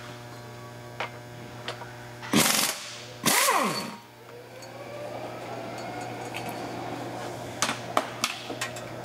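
Impact wrench spinning out flywheel-to-crankshaft bolts in two short loud bursts, about two and three seconds in, its motor winding down after the second. A couple of sharp metallic clicks follow near the end.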